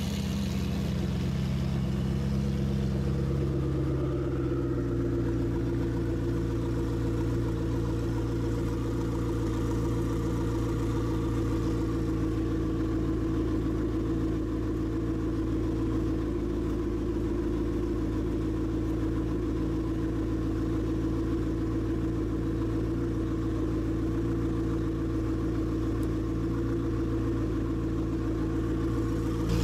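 McLaren 650S twin-turbo V8 idling steadily, heard close at its exhaust outlets. The note shifts about three seconds in and then holds even.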